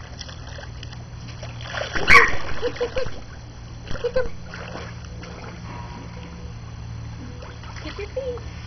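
Pool water splashing from people moving in it: a loud splashing burst about two seconds in lasting about a second, then smaller splashes around four seconds.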